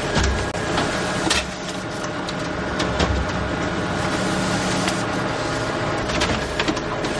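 Photocopier running: a steady mechanical whir and hum, with occasional sharp clunks.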